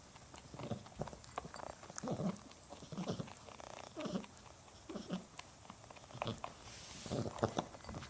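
Pet rabbit wheezing, a raspy noise with each breath, about one breath a second.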